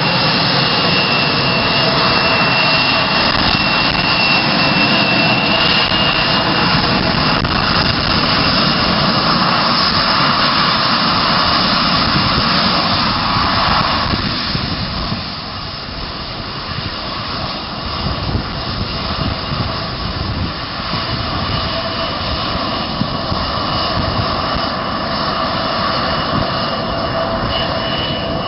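Twin rear-mounted turbofans of a Bombardier CRJ regional jet running close by, with a steady high whine. The sound drops off about halfway through as the jet moves away, then builds again near the end as it starts its takeoff roll.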